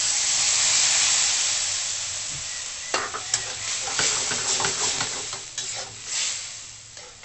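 Squid and its liquid poured into a hot wok of oil and sautéed aromatics, setting off a loud sizzle that peaks in the first second or two, with hot oil spattering. From about three seconds in, a metal spatula scrapes and clacks against the wok as the sizzle dies down.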